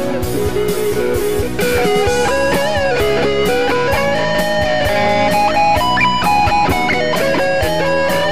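SG-style electric guitar playing a lead line with string bends and vibrato, over a rock backing track with a steady drum beat and bass.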